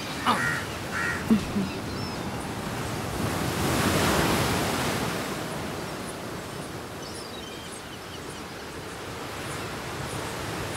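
Sea surf washing ashore, swelling into one larger breaking wave about four seconds in and then settling into a steady wash.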